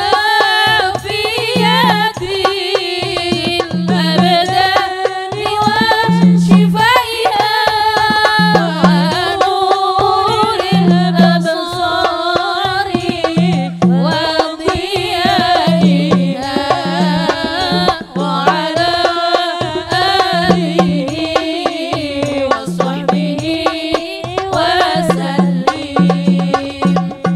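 A woman singing sholawat, an Arabic devotional song in praise of the Prophet, in long ornamented melodic phrases over a microphone, with a steady low drum beat accompanying her.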